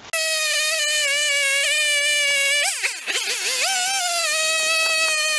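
Two-stroke chainsaw running at high revs, a high-pitched whine that sags and climbs back about three seconds in as the chain bites into the log and the engine bogs, then holds steady again.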